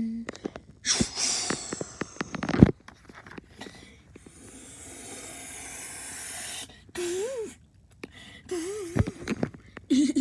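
A child making vocal sound effects with his mouth and breath: a loud, sneeze-like burst of breath, then a long hissing whoosh that slowly swells, and a few short sliding vocal squeaks near the end.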